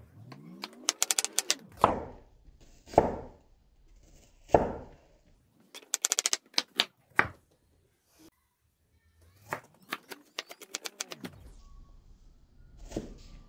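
Kitchen knife chopping shallots on a wooden log cutting board: three quick runs of rapid taps, with single heavier knocks of the blade on the wood in between.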